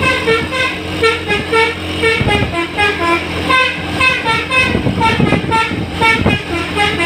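Bus 'telolet' basuri musical horn playing a fast run of short, changing notes, repeated over and over, with vehicle engine noise underneath.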